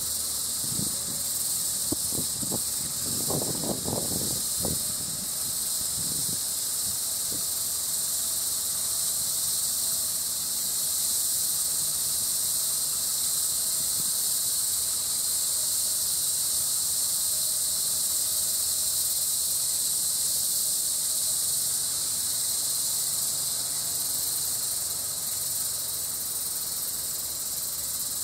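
Steady high-pitched drone of insects, unbroken throughout, with a few brief low knocks in the first six seconds or so.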